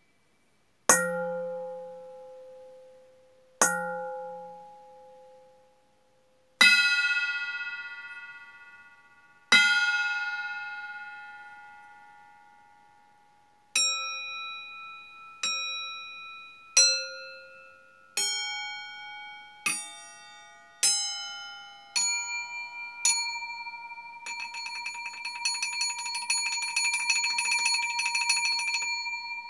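Stainless steel bowls struck as improvised singing bowls, each strike ringing with a clear metallic tone that slowly dies away. Four slow strikes a few seconds apart, then eight quicker strikes on bowls of different pitch, then about four seconds of very rapid strokes, the last tones ringing on.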